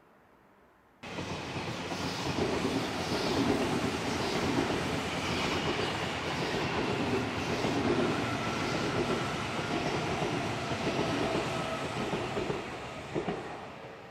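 Odakyu Line electric train passing close by, starting abruptly about a second in: a loud rumble with wheels clattering over the rail joints, dying away near the end.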